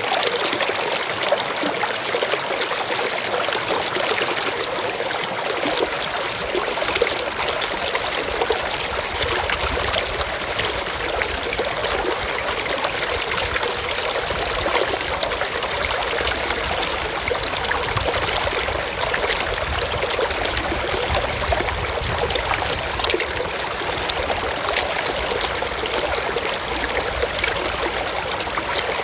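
Running water, trickling and babbling steadily with many small splashes.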